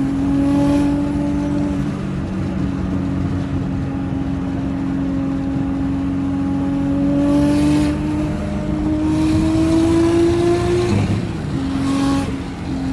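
Nissan Skyline R32's RB straight-six engine heard from inside the cabin, running steadily as the car drives. The revs climb slowly over several seconds, drop sharply about eleven seconds in, then hold steady again.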